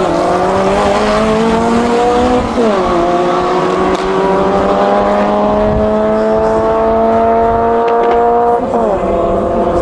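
A tuned 1700cc Ford Crossflow four-cylinder in a Mk1 Ford Fiesta accelerating at full throttle down a drag strip. Its pitch climbs steadily in each gear and drops sharply at the upshifts, about two and a half seconds in and again near the end.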